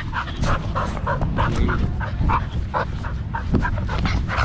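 Dogs play-fighting at close range, with short, rapid dog sounds about three or four a second. A low rumble from the dog-mounted camera's movement runs underneath.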